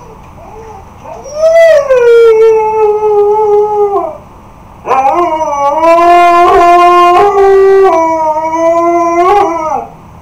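A husky howling: two long howls. The first starts about a second in and lasts nearly three seconds, sinking slightly in pitch. The second is about five seconds long, held steady and dropping off as it ends.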